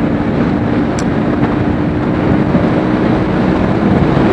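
Vespa P200E's 200 cc two-stroke single-cylinder engine running steadily while riding, heard from a helmet camera with wind rushing over the microphone. The engine's steady note fades a little near the end.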